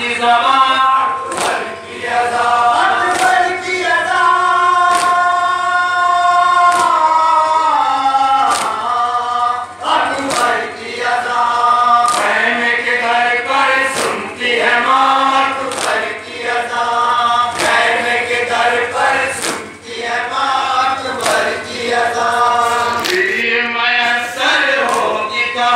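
Men chanting a noha, an Urdu lament, in chorus through a PA. Sharp strikes of matam (chest-beating) mark the beat about every one to two seconds.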